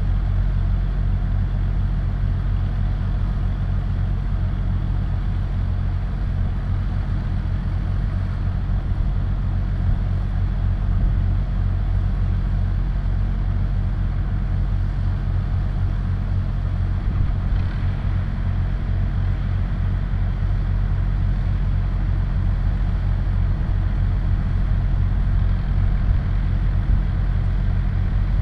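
Vehicle engine idling steadily while stopped, a low even hum.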